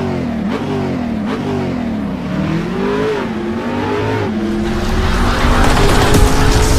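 Sound effect in a video intro: a car engine revving up and down. About five seconds in, a louder music intro builds underneath.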